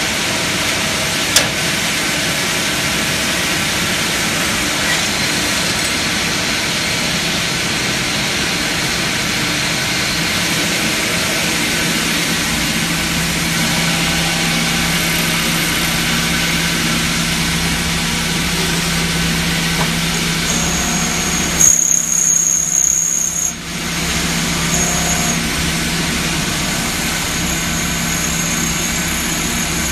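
CNC lathe fed by an automatic bar feeder, running while it turns brass bar stock: a steady machine drone with hiss. There is a sharp click just over a second in, and about two-thirds of the way through a high whine sounds and the noise briefly dips.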